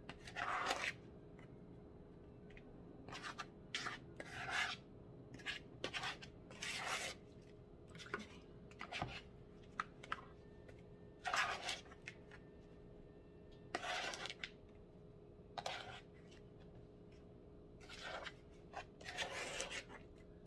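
A metal spoon scraping and stirring through seasoned flour in a plastic mixing bowl, in a dozen or so short, irregular scrapes.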